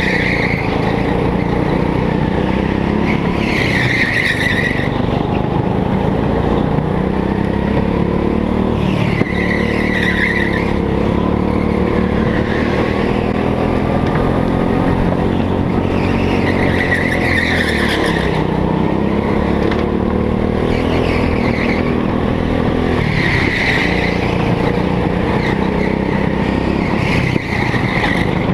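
Go-kart engine heard from on board, running hard with its pitch rising and falling as the kart works through the corners. The tyres squeal on the slick floor about eight times, each squeal lasting about a second.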